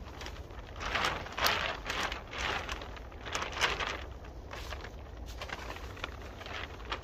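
Clear plastic tarp sheeting rustling and crinkling in irregular bursts as it is pulled and smoothed over a shelter frame.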